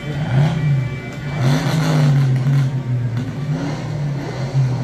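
Lightning Rod wooden roller coaster train running on the track overhead: a loud low drone that wavers up and down in pitch, over a rushing rumble.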